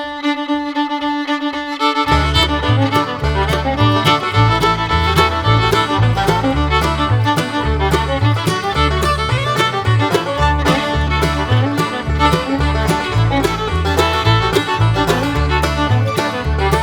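Background music: an upbeat fiddle tune that opens on a held note, with a bass line and steady beat coming in about two seconds in.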